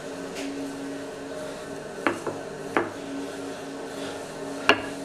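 Wooden rolling pin rolling out pizza dough on a granite countertop, with about four short knocks of the pin against the stone, the last one near the end. A steady low hum runs underneath.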